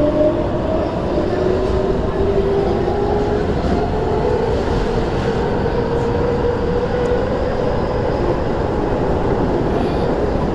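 Keio 9000 series electric train running at speed through an underground station without stopping, heard from inside the car: steady wheel and track rumble with a traction motor whine that rises slowly.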